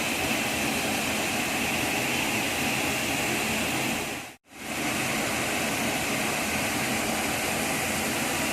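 Steady rushing of a waterfall, a dense even noise with no rhythm; it dips out briefly and returns about halfway through.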